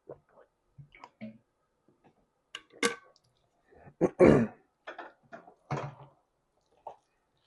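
Eating mouth noises: scattered short wet smacks and clicks, with a loud, short guttural throat sound about four seconds in, the loudest moment.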